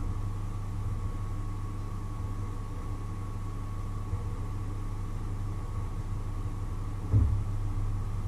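A steady low machine hum with a thin, steady high tone above it, and a single short knock about seven seconds in.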